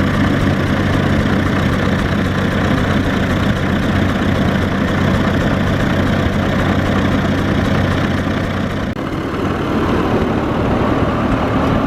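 Vintage tractor engine running steadily with an even low note; the sound drops out briefly about nine seconds in, then the engine noise carries on, less even.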